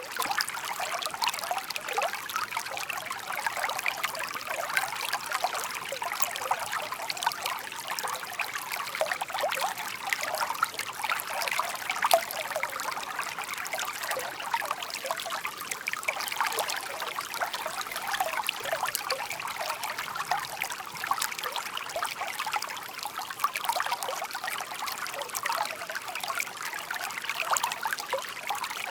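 Shallow stream babbling over stones: a steady, dense patter of small trickles and splashes.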